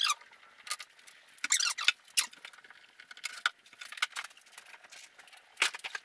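Short, high-pitched squeaks and scrapes in irregular bursts as aluminium wing skins covered in blue protective plastic film are slid and lifted out of a wooden shipping crate.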